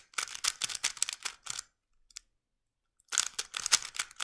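Plastic 3x3 speedcube being turned quickly by hand, its layers clicking and clacking in fast runs. There are two runs of turning with a pause of about a second between them.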